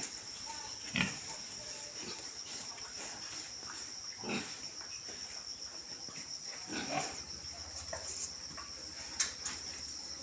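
Pigs grunting a few times, short separate grunts spread out, over a steady high chirring of insects.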